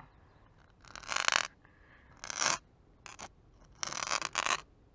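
A slider firework being scraped hard across concrete in four short, rasping bursts, the last one the longest.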